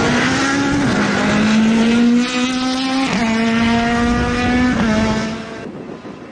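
A rally car's engine at full throttle, pulling up through the gears with three quick upshifts: each gear the note climbs, then drops sharply at the shift. It then fades quickly as the car goes away.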